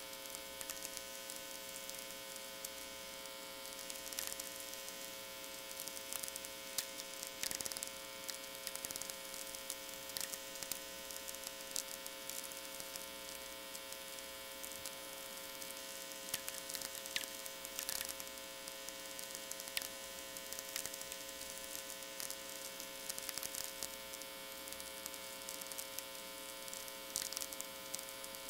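VLF natural-radio receiver output from a loop antenna: irregular sharp crackling clicks of sferics, radio pulses from distant lightning, over a steady powerline hum with many harmonics. A short falling, whistle-like tweek comes a bit past halfway.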